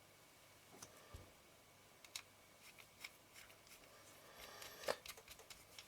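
Faint, scattered small clicks and scrapes of a screwdriver and metal parts being handled while screws are driven into an Ai Nikkor 135mm f/2 lens. The clicks bunch together a little before the end, with one sharper click among them.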